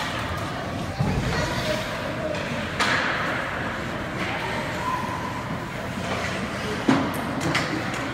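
Ice hockey play heard up close: skates scraping and hissing on the ice, with a few sharp knocks of sticks or puck and faint voices in the arena.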